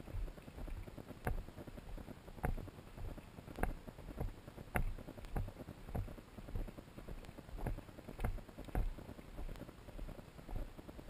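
Footsteps of a hiker walking on a loose, rocky gravel trail, a sharp step sound about once a second, over a low rumble of the body-worn camera jostling.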